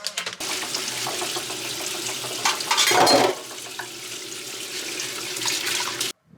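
Water running from a kitchen tap into a sink, with a brief louder splash about three seconds in, then cutting off suddenly near the end.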